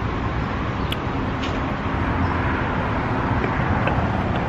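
Steady road traffic noise, a low rumble with a couple of faint clicks about one and one and a half seconds in.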